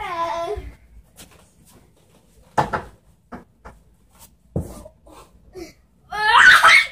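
A few hollow knocks as a boy kicks up onto a wooden gymnastics bar and swings upside down, with a short cry at the start and a louder, rough cry near the end.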